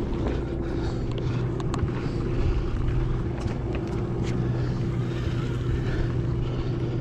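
Sportfishing boat's machinery running with a steady low hum, and a few faint clicks over it.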